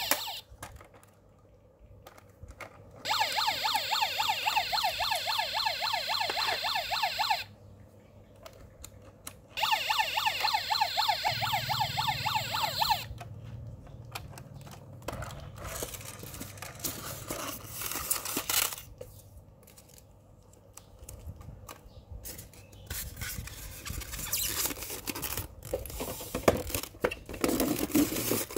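Electronic siren sound effect from a 1/24 scale diecast police van's sound module: a fast warble in two bursts, each stopping suddenly. Between and after them come clicks and rattles of the model being handled, then paper and packaging rustling near the end.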